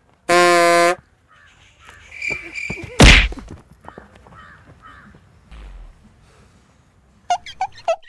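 A string of comedy sound effects: a short, loud buzzing tone near the start, a heavy whack about three seconds in that is the loudest sound, and a quick run of falling chirps near the end.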